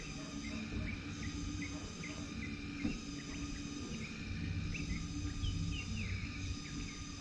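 Insects trilling in on-off stretches of a second or two, over a low steady rumble.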